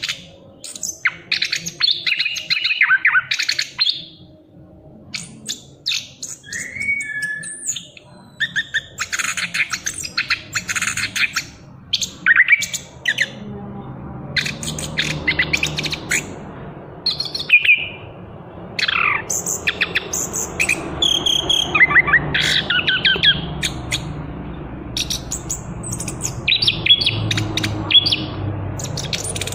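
Young orange-headed thrush, just moulting out of its spotted juvenile plumage, singing almost without pause. Its song is quick, varied phrases of chirps, trills and whistles with short gaps between them.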